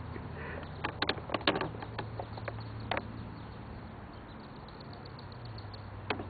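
Mallard-type ducklings peeping faintly, with a few sharp clicks scattered through, over a low steady hum.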